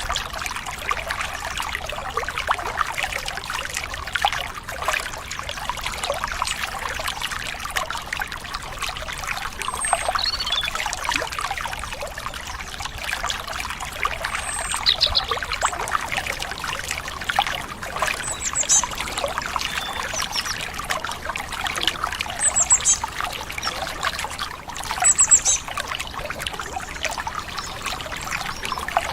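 Stream water trickling and splashing steadily, with a few short, high bird chirps every few seconds over it; the chirps near the end are the loudest.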